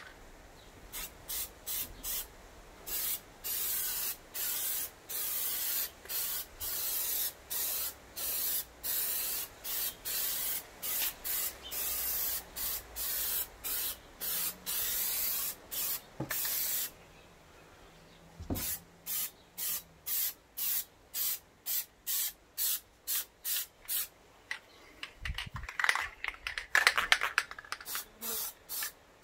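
A Plasti Dip aerosol can spraying in dozens of short hissing bursts about a second apart, with a pause of a second or so in the middle. There are a few louder knocks near the end.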